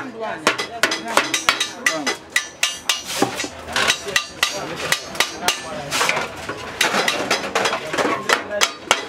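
Hand hammering on the thin sheet aluminium of a heart-shaped baking pan being formed: quick, irregular metallic taps, several a second.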